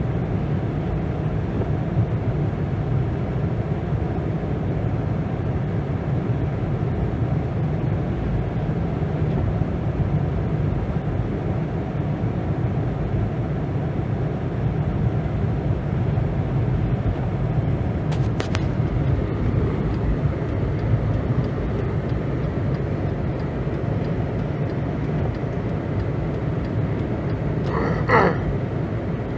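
Car driving, a steady low rumble of engine and tyres on the road. There is a short, high squeak near the end.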